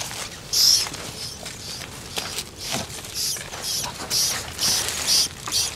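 A rat squeaking over and over in short, high-pitched squeals, about two a second.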